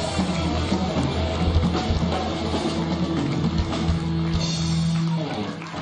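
Live rock band playing, with electric guitar and drum kit, and the music stops about five seconds in.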